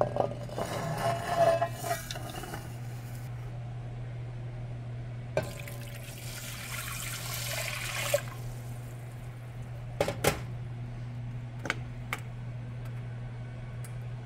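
Dried elderberries and ground spices slide off a plate into a cast iron pot, then water is poured from a glass jar into the pot for a few seconds, ending about 8 seconds in. A few sharp clinks and knocks of glass and pot follow, over a steady low hum.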